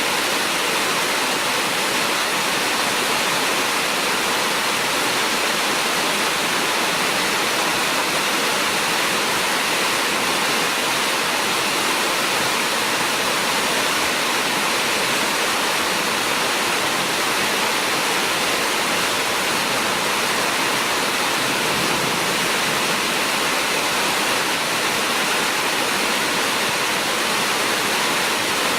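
Heavy rain falling, a steady, unbroken hiss of water.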